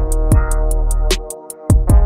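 Background electronic music with a steady drum-machine beat, fast hi-hat ticks and a deep bass line. The bass and kick drop out briefly about a second and a half in.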